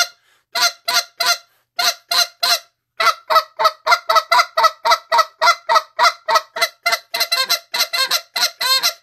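Goose call blown in short, clipped spit notes, goose-like honks: a few spaced notes at first, then from about three seconds in a fast unbroken run of about five notes a second.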